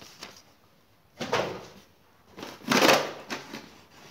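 Paper instruction sheets and a styrofoam packing block being handled, in two short bursts of rustling and scraping about a second apart.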